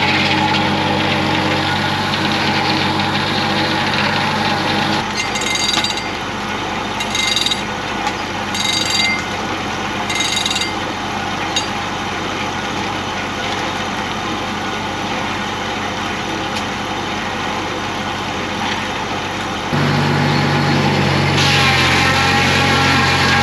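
Homemade bandsaw sawmill running with a steady motor hum. About five seconds in, the hum gives way to a rougher, noisier stretch with four short hissing bursts. The steady hum returns a few seconds before the end.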